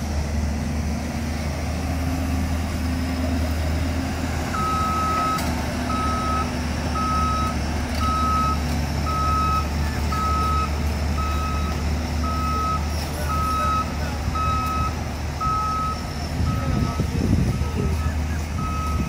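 JCB tracked excavator's diesel engine running steadily under work, with a reversing alarm beeping evenly from about four seconds in, roughly three beeps every two seconds.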